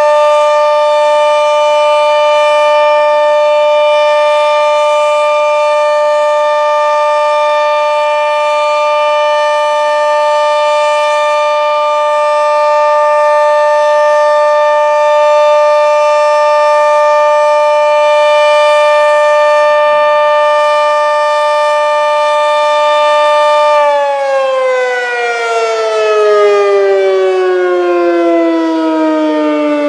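Sentry 40V2T dual-tone outdoor warning siren sounding a steady alert signal: a loud chord of two held tones. About 24 seconds in it shuts off and winds down, its pitch sliding steadily lower.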